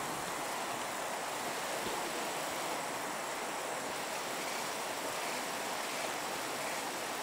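Steady, even rushing noise outdoors, with no distinct events.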